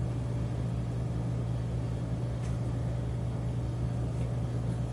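Steady low background hum, with a few faint ticks of a pen writing on paper.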